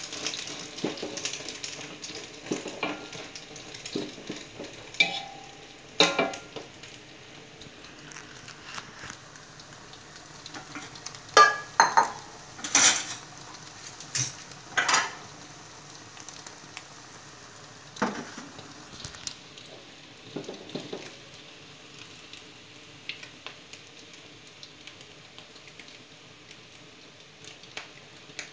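Egg frying in oil in a metal wok, a steady sizzle. A metal spatula scrapes and knocks against the wok now and then, with the sharpest knocks clustered between about 11 and 15 seconds in.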